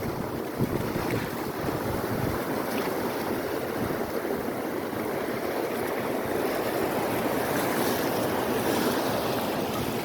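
Steady rushing of wind on the microphone over washing water, swelling a little about three-quarters of the way through.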